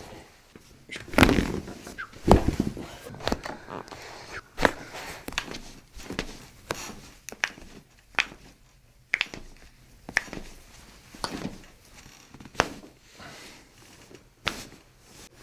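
Irregular knocks, taps and soft thuds in a small room, one every second or two, a few of them heavier.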